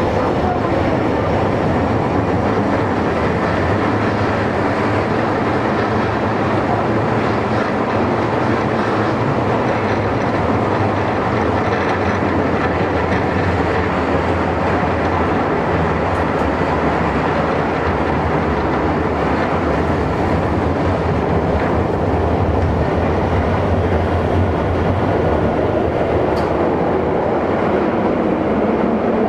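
Toei 10-300 series subway car heard from inside the cabin while running between stations: a steady, loud rumble of wheels on rail and running gear.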